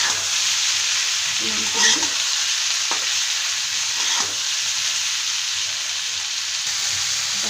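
Chicken pieces sizzling steadily in hot oil in a pan, just after being added. A few light knocks from stirring come about two, three and four seconds in.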